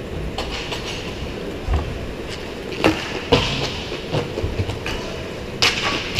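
Inline skate wheels rolling on plastic sport-court floor tiles with a steady rattling rumble, broken by several sharp clacks from hockey sticks and puck, the loudest a little before and after three seconds in and near the end.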